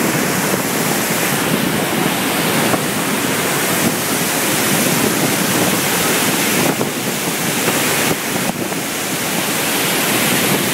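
Loud, steady rushing of floodwater from the rain-swollen Río Guadalentín pouring through the dam.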